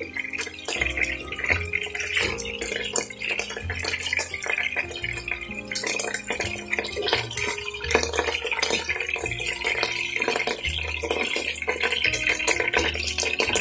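Chicken pieces frying in hot oil in a pan, with steady sizzling and crackling as they are lifted out one by one. A low background tune plays underneath.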